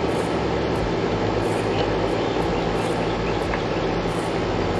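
Steady outdoor background noise, an even rumble and hiss, with faint high insect chirps pulsing about one and a half times a second.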